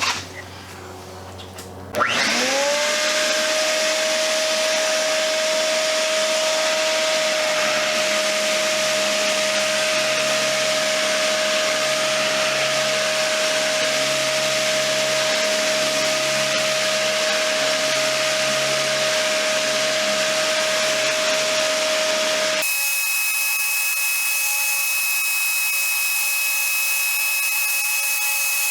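Ridgid random orbital sander, dust-extracted by a Shop-Vac, spins up with a quick rising whine about two seconds in and runs steadily while sanding fairing compound with 60-grit paper. Near the end the sound abruptly changes to a thinner, higher steady whine.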